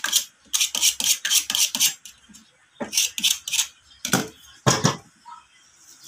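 Metal parts and hand tools clinking and knocking against each other as a starter motor's cover and fittings are put back together: quick runs of sharp clicks, with a heavier knock near the end.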